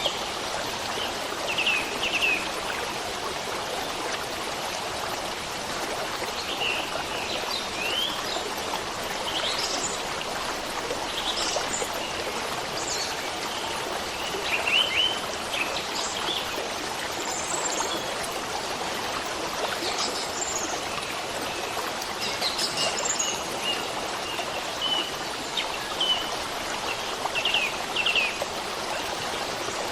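Steady running water of a stream, with short bird chirps and calls breaking in over it again and again.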